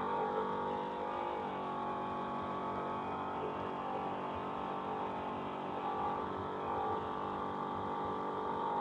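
Off-road race vehicle's engine running flat out at steady, high revs, heard onboard as a continuous drone of stacked tones with little change in pitch.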